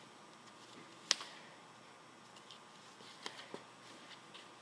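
Faint handling noise as cloth work gloves are pulled on, with one sharp click about a second in and two lighter clicks a little after three seconds.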